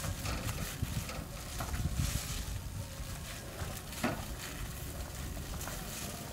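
A few knocks as raw cow legs are set down on a metal grill grate, the sharpest about four seconds in, over a steady low rumble.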